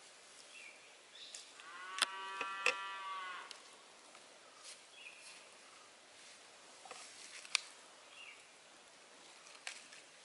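A cow moos once, a long call of about two seconds starting a couple of seconds in. A few sharp clicks and faint bird chirps sound around it.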